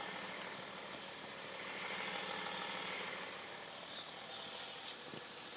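Diesel car engine idling steadily soon after a cold start, with a steady high hiss over it.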